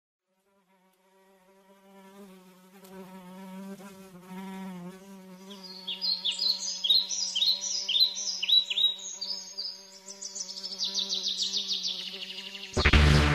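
A housefly buzzing: a steady, slightly wavering hum that fades in. From about halfway through, a run of short, high, falling chirps joins it and then speeds into a rapid trill. Near the end a sudden loud sound cuts in.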